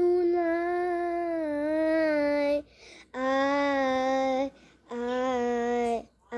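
A young girl singing unaccompanied, holding long vowels: one note of about two and a half seconds that dips slightly in pitch, then two shorter, lower held notes with brief breaks between them.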